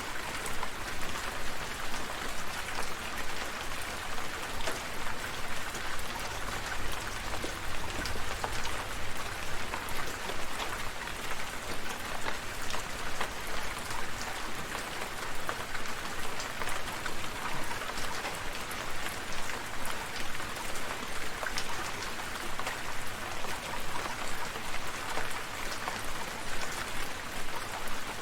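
Steady rain falling, a continuous hiss with many individual drops pattering and ticking on surfaces.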